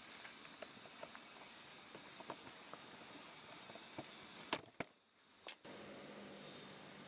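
Faint background hiss with scattered light crackles of macaques walking on dry leaf litter. A few sharp clicks come past the middle, with a brief dropout of sound between them.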